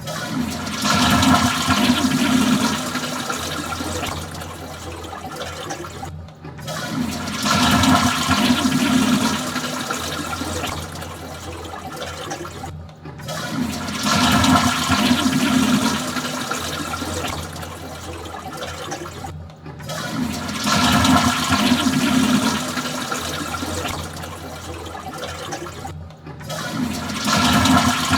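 Toilet flushing, repeated about every six and a half seconds. Each flush opens with a loud rush of water, eases to a lower, steady rush, and cuts off abruptly before the next begins.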